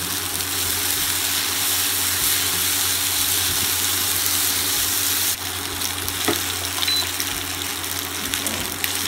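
Macaroni with vegetables and cream sizzling in a nonstick frying pan on an induction cooktop as it is stirred with a silicone spatula. The sizzle eases a little about five seconds in, and there is a light tap about a second later.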